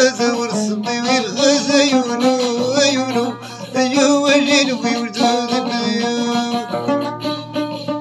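Music: a Moroccan loutar, a plucked lute, playing a melody over a low sustained note.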